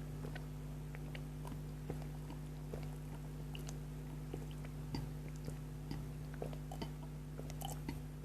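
A person chewing spicy noodles close to the microphone: scattered small, soft mouth clicks over a steady low hum.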